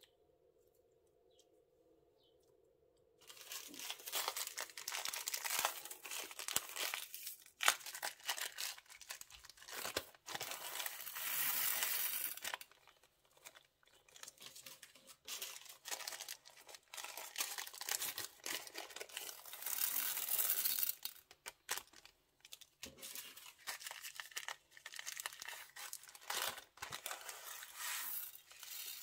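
Plastic bags being crinkled and torn while handled, in irregular bursts with short pauses. It starts about three seconds in, after a faint steady hum.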